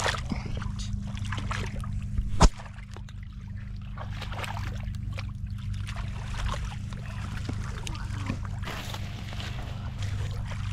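Muddy shallow water sloshing and splashing as feet wade and hands grope through it among water hyacinth, over a steady low hum. One sharp, loud knock about two and a half seconds in.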